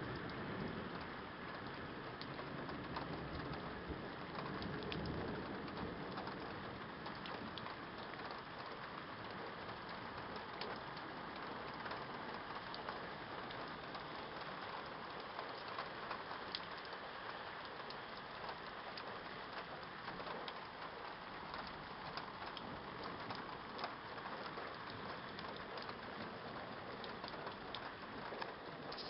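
Steady rain falling during a thunderstorm, a constant hiss with many scattered drop ticks. A low rumble of thunder fades out in the first couple of seconds.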